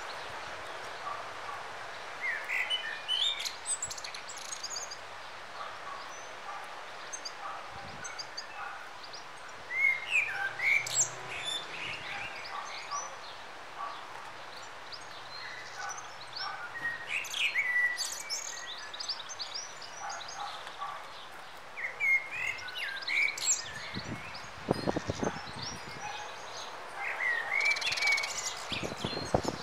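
A small songbird sings about five short phrases of quick, high jingling notes, each a second or two long and several seconds apart, over a steady hiss. A few dull thumps come near the end.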